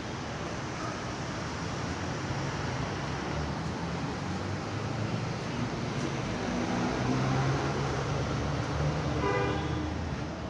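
Street traffic: a steady rumble and hiss of passing vehicles, swelling in the middle, with a brief horn toot about nine seconds in.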